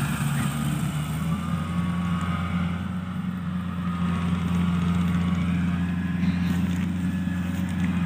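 Mini combine harvester's engine running steadily while cutting rice, an even low hum.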